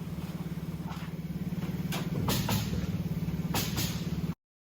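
An engine running steadily with a fast, even throb, with a few sharp knocks over it. The sound cuts off abruptly near the end.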